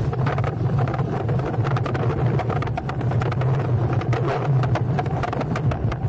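Motorcycle engine running steadily in a low gear as it climbs a rough off-road track, with frequent knocks and rattles from the bumpy ground.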